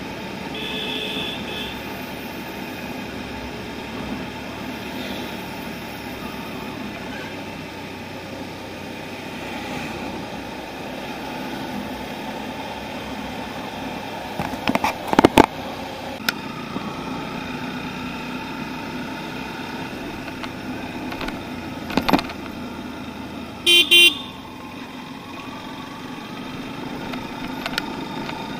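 A motorcycle riding through traffic: steady engine and road noise throughout. Vehicle horns honk shortly after the start and again near the end, and a few sharp knocks come in between.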